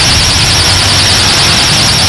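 Harsh noise music: a loud, dense wall of distorted analog-synthesizer and fuzz-pedal noise. High shrill tones wobble rapidly up and down over a gritty low rumble.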